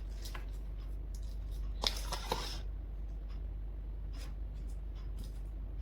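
Scattered small clicks and rustles of blind-box packaging being handled, over a steady low hum. About two seconds in there is a short crinkling, tearing burst with two sharp clicks.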